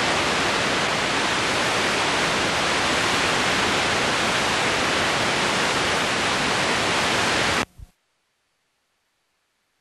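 Steady hiss of analogue television static (snow). It cuts off suddenly after almost eight seconds into silence.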